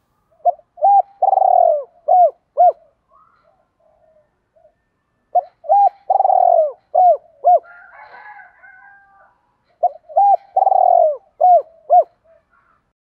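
Spotted dove cooing: the same phrase three times, about four seconds apart, each a few short notes around one longer drawn-out note.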